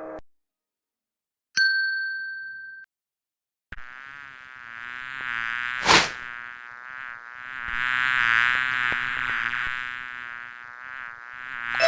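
A single bell-like ding about a second and a half in, cut off after about a second. Then, after a pause, a housefly buzzing that swells and fades as if it flies near and away, with one sharp click about halfway through.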